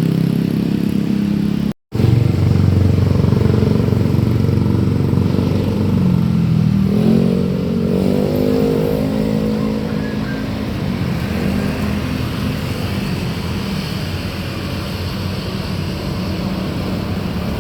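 Road vehicle engines running as traffic passes. About seven seconds in, one engine's pitch bends up and then down. The sound cuts out for a moment just under two seconds in.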